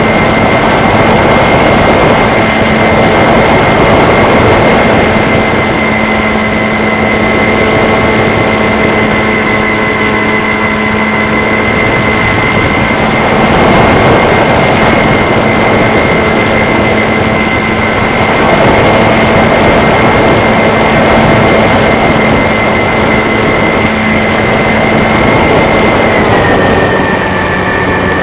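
RC model plane's motor and propeller running steadily with a loud rushing noise and a held high whine. About 26 seconds in the whine drops in pitch as the throttle is eased back.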